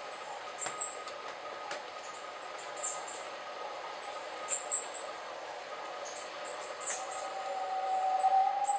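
White-throated tinamou singing: one long, pure whistled note starts about seven seconds in, rising slightly in pitch and growing louder toward the end. Behind it runs a constant stream of rapid, very high chirps.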